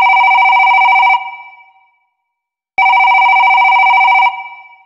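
A telephone ringing twice, each ring a fast bell-like trill lasting about a second and a half, with a short fading ring after each one stops.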